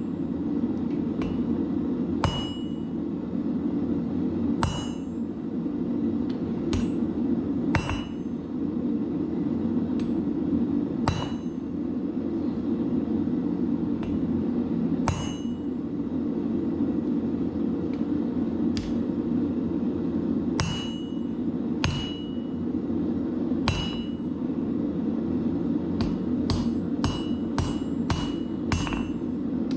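Hammer blows on hot 5160 leaf-spring steel over an anvil: single ringing strikes every second or two, coming in quicker runs near the end, over a steady low rushing noise.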